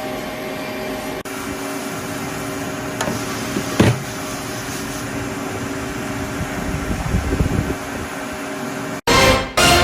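Multi-tasking NC lathe running with a steady machine hum of several fixed tones, a sharp click a little under four seconds in and some rattling of the cut a few seconds later. The hum cuts off abruptly near the end.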